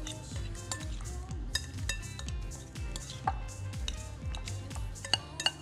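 Forks clicking and scraping against glass mixing bowls as crab meat is flaked and avocado is mashed, with a few sharp clinks scattered through.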